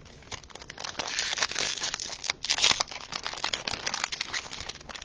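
Foil trading-card pack wrapper crinkling and crackling as it is handled and torn open.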